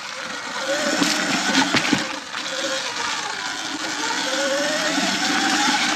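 Sur Ron X electric dirt bike's motor whine rising and falling with the throttle, climbing in pitch in the last couple of seconds. Underneath are tyre and wind noise and scattered knocks from the bike going over the dirt trail.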